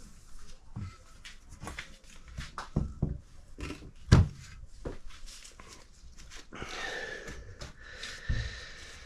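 Clicks and knocks of small metal engine parts, cylinder-head valves and springs, being handled and set down on a workbench, with a louder knock about four seconds in.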